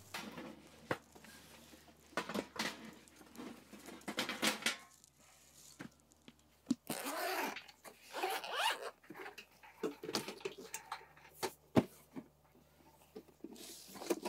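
Metal clicks and knocks with short stretches of scraping and rasping as a stainless-steel IGT camping table is fitted together and its adjustable legs are set, a leg's foot turned to level it.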